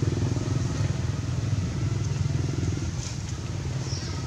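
Engine running steadily with a rapid even pulse, growing a little fainter over the last couple of seconds.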